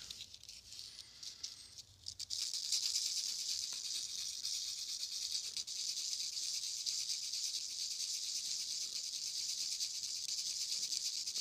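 Cut end of a plastic female pin header being rubbed on fine sandpaper: a steady, scratchy sanding hiss that starts about two seconds in.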